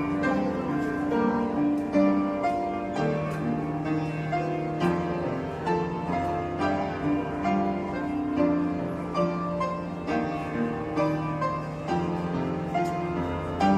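Instrumental background music: a keyboard melody of short notes over held low notes.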